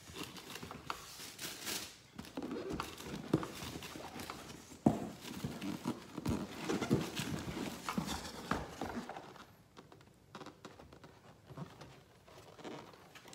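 Hands rummaging in a large cardboard box: flaps and packing rustling and scraping, with irregular knocks and one sharp knock about five seconds in, growing quieter over the last few seconds.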